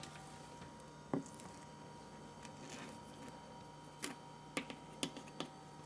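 Faint clicks and taps of a detergent scoop as dishwasher detergent powder is scooped and poured into a dishwasher's detergent cup: one click about a second in, a soft rustle, then four quick taps near the end.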